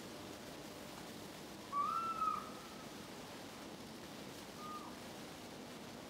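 A clear, whistle-like animal call in the night, which the recordist takes for a fox: one call about two seconds in that rises, holds and drops, then a shorter, fainter one near the five-second mark, over a steady low hiss.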